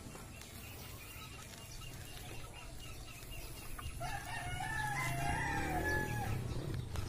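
A rooster crowing once, about four seconds in: one wavering call about two seconds long, over a low steady hum.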